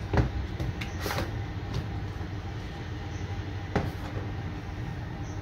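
A few light knocks and taps as a tablet and its cardboard box are handled on a table, the sharpest near the start and just before four seconds in. A steady low hum runs underneath.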